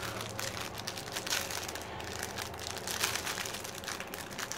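Thin plastic packaging crinkling and rustling in irregular crackles as hands turn a plastic-wrapped roll.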